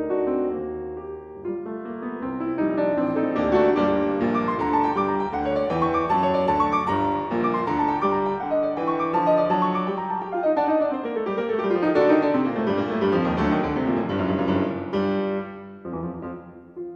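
Background piano music: quick flowing runs of notes, fullest through the middle and thinning out near the end.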